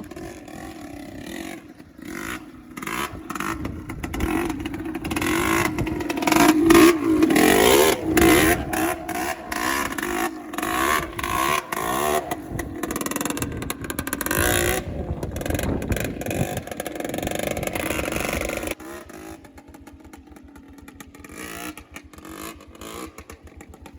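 Motorcycle engine revving and accelerating, rising in pitch a few seconds in, with sharp crackles through it. About nineteen seconds in it drops to a quieter, steady running.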